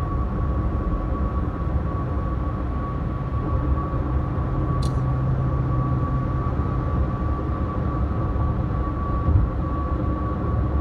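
Steady low rumble of continuous background noise with a thin, constant high tone over it and a single brief click about five seconds in.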